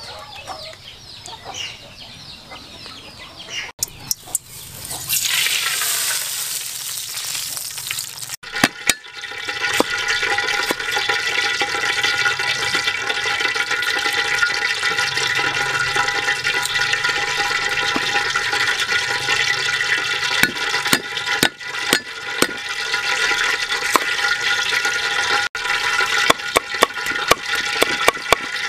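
Cleaver chopping scallions and garlic on a wooden cutting board, irregular sharp knocks over a loud steady hiss. A few seconds of loud rushing noise come before the chopping.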